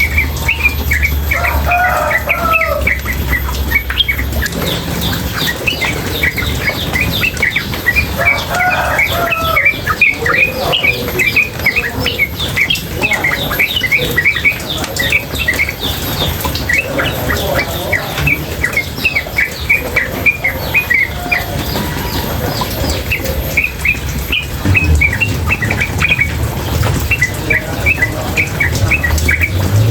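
Female yellow-vented bulbul (trucukan) calling nonstop in a rapid run of short, high chirps with occasional lower warbled phrases, over the steady rush of running water.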